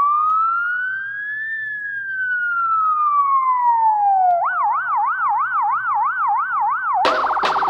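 Electronic siren: one slow wail that rises and then falls, then switches to a fast yelp warbling about three times a second. About seven seconds in, a harsher, noisier sound joins it.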